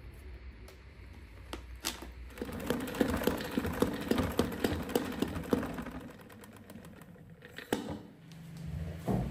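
Spin mop whirling in its bucket's spinner basket: a steady whirring hum with regular clicking, about three clicks a second, that stops after three or four seconds. A sharp knock and a thump follow near the end.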